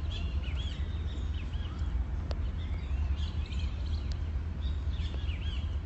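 Birds chirping repeatedly in short arched calls over a steady low rumble, with one sharp click about two seconds in.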